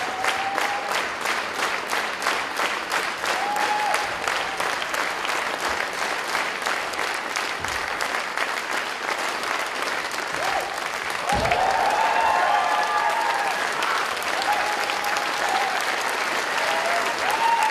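Audience applauding, at first in rhythmic unison at about four to five claps a second, then loosening into a continuous patter. About 11 seconds in the applause swells louder, with cheers calling out over it.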